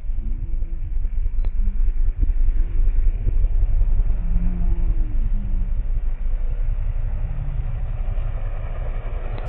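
Kawasaki Vulcan 900's V-twin engine rumbling deep and steady as the cruiser rides past, its note swelling and easing a few times.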